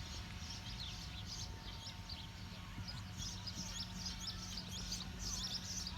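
Small birds chirping in quick, overlapping high twitters that grow denser about halfway through, over a steady low rumble.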